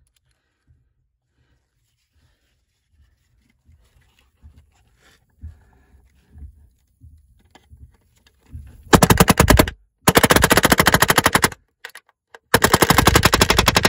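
Pneumatic palm nailer driving a 10d nail through a steel angle bracket into a wooden joist: three loud bursts of rapid hammering blows in the last five seconds, each about a second long. Before that, only faint handling and scraping.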